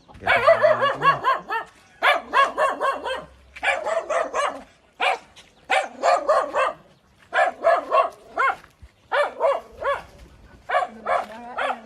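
Dog barking loudly and repeatedly, in short bouts of barks that come every second or so.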